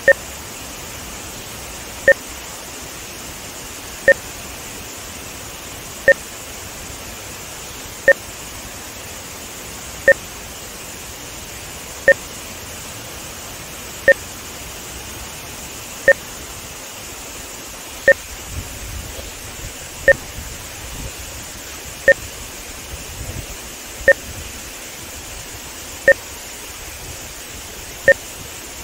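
Steady rush of water pouring through a dam spillway into the river below, with a short electronic beep exactly every two seconds: a test-signal marker added to the audio track for audio-video timing measurement.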